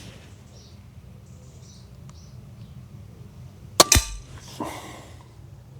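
A single shot from a .22 SMK Snowpeak PP750L PCP air pistol: a short, sharp crack about four seconds in, with a second click a fraction of a second after it.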